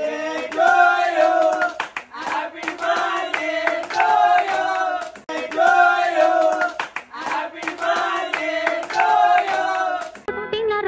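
A group of young men singing together in repeated phrases while clapping their hands. Near the end it cuts to a music track.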